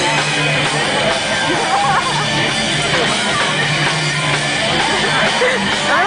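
Rock music with guitar and drums, a held bass note dropping out and coming back, over the chatter of a crowd in the stands.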